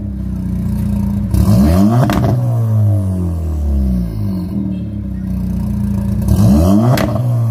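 Skoda RS TDI diesel engine revving through an aftermarket exhaust: idling, then blipped twice, each rev climbing sharply for under a second before falling back to idle.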